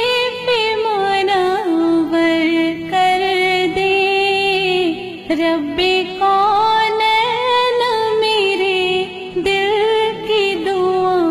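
A sung devotional dua: a solo voice holding long melodic lines with sliding, ornamented pitch.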